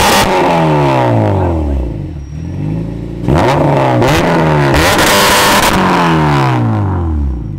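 Acura RSX's four-cylinder engine revved hard twice. Each time the pitch climbs, holds high for a couple of seconds, then falls back toward idle.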